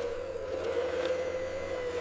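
A machine motor running steadily, with a constant whine over a low hum.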